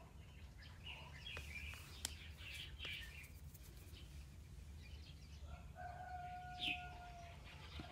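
Birds calling in short high chirps, then one long steady call held for more than a second from about five and a half seconds in, over a faint low background hum.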